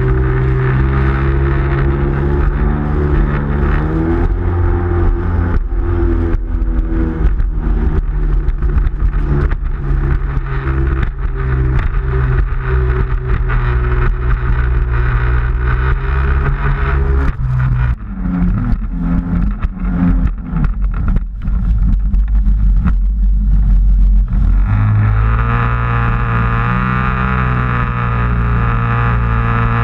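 Sea-Doo XP jet ski engine running at speed, heard from on board along with wind and water spray. The engine note shifts in pitch a few seconds in. Past the middle it breaks up for several seconds into rough splashing and rumbling as the craft bounces over the chop, then settles back to a steady drone near the end.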